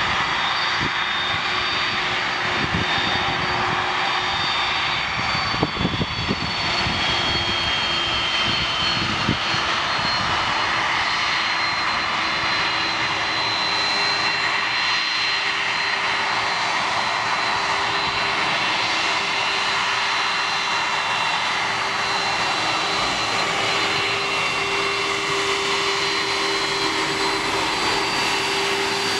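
Boeing 747's four jet engines running at taxi power as the jumbo rolls slowly past, a steady roar with a high whine and a lower hum.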